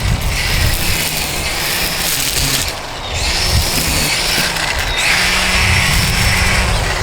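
DeWalt 20V Max XR brushless string trimmer running, a steady high motor and line whine over a rough low rumble, easing off briefly about three seconds in before picking back up.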